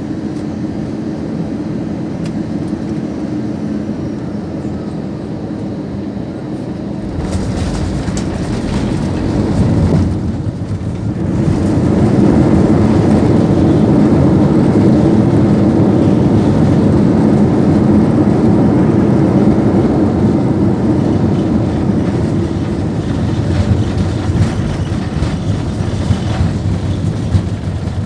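Airbus A320 landing heard from inside the cabin: steady engine and airflow noise, then about seven seconds in the wheels touch down and a coarse rumble of the landing gear on a rough, washboard-like runway sets in. A few seconds later the engine noise swells to a loud steady roar under braking, easing slowly near the end.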